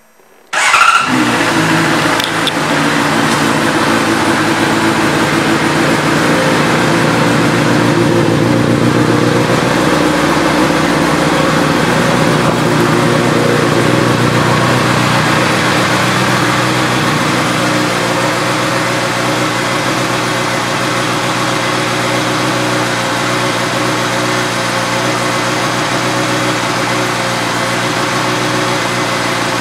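2011 Honda CBR600RR's inline-four engine, fitted with an Akrapovič exhaust, starts up suddenly about half a second in and then runs steadily at idle.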